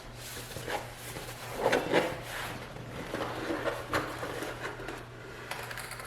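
Cardboard gift box being handled and opened by hand: a few short scrapes and rustles of cardboard and packaging about a second apart, over a steady low hum.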